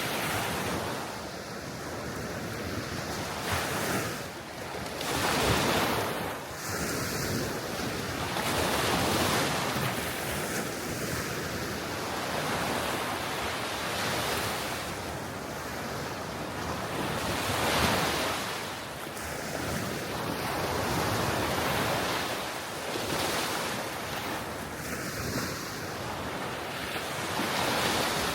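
Gentle waves breaking and washing on a shore, each swell of surf rising and falling every few seconds, with steady wind and some wind noise on the microphone.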